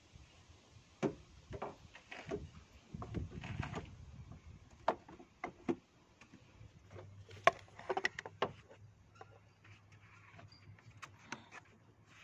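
Plastic engine air-filter box being handled: an irregular series of knocks, scrapes and sharp clicks as a new panel air filter is slid into the airbox.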